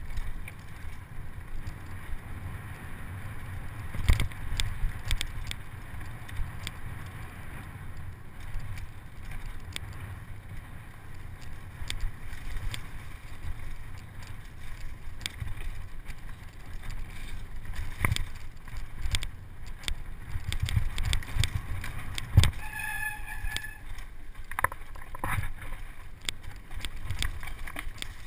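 Electric mountain bike running fast down a dirt forest singletrack: a steady low rumble of wind on the microphone and tyres on dirt, broken by frequent clicks, knocks and rattles as the bike hits bumps. A short high-pitched squeal sounds about three-quarters of the way through.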